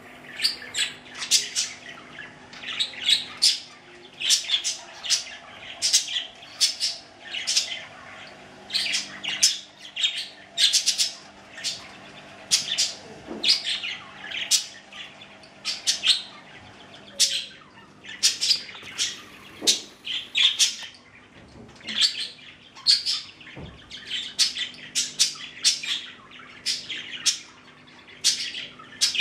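Two budgerigars chirping and chattering, a rapid run of short, sharp chirps several times a second that goes on throughout.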